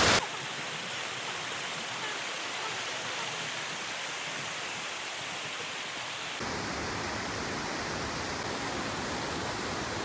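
Creek water rushing and splashing over a concrete weir and rocks, a steady noise that shifts slightly in tone about six seconds in.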